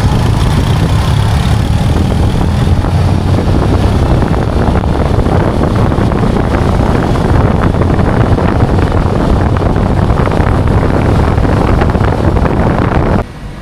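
Wind buffeting the microphone over the running engine of a Yamaha PG-1 single-cylinder motorcycle at road speed. The sound cuts off suddenly near the end.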